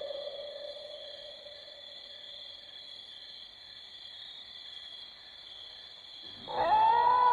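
A made-up creature sound effect: a held tone fades away at the start, then about two-thirds of the way through a loud call sweeps sharply up in pitch and holds, all over a steady high-pitched whine.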